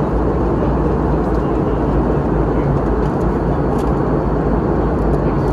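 Steady, even cabin noise of a Boeing 717-200 jet airliner: a low rush of engine and air noise heard from a seat inside the cabin.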